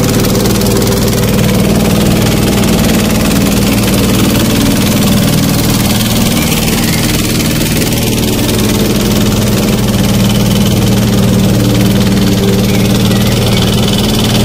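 Motor boat engine running steadily with an even drone.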